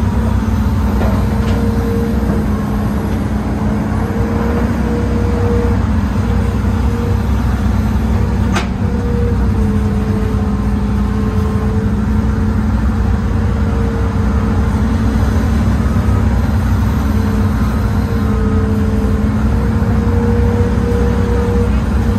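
An old Hitachi excavator's diesel engine and hydraulics running steadily under working load, heard from inside the cab, a steady hum whose pitch shifts a little as the boom and bucket move. A single sharp click about eight and a half seconds in.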